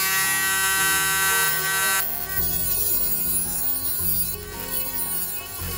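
Cordless rotary tool (Dnipro-M MG-12, 12 V) spinning an abrasive cut-off disc at near-maximum speed, a steady high whine; about two seconds in the disc bites into steel rebar and the sound turns to a noisier grinding. Background music underneath.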